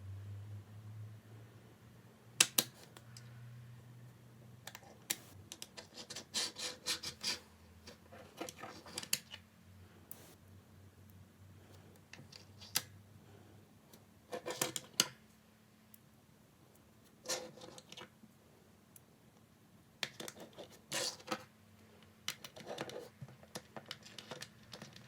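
Small magnetic balls clicking and clacking together as they are handled and snapped into place, in irregular clusters of sharp clicks with short pauses between.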